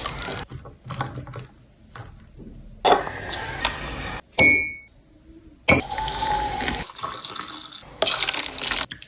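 Liquid pouring and splashing into a glass, with glass and dish clinks; one clear ringing clink a little before halfway and a sharp knock just after it.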